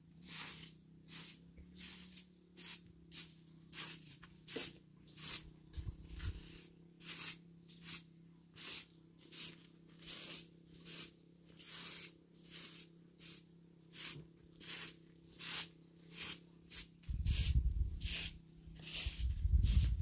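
Short straw hand broom sweeping packed dirt ground: a steady run of brushing swishes, about two strokes a second. A low rumble joins the sweeping near the end.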